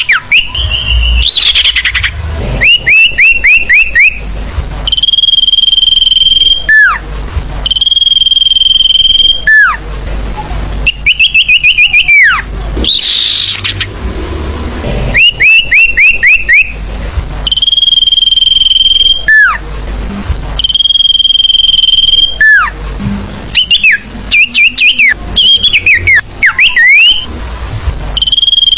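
Sirfu (velvet-fronted nuthatch) lure-call recording: quick bursts of about five down-slurred chirps alternate with a long, steady high whistle that drops sharply at its end, the pattern repeating every few seconds.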